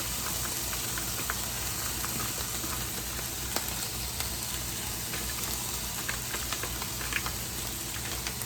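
Salmon sizzling in a hot frying pan: a steady frying hiss with scattered crackles and light clicks.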